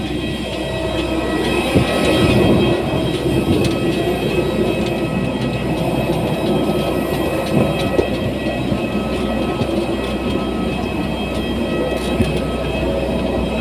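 Steady drone of a parked jet airliner's turbines, a high whine of several steady tones over a low rumble, with a few footsteps clanking on the metal boarding stairs.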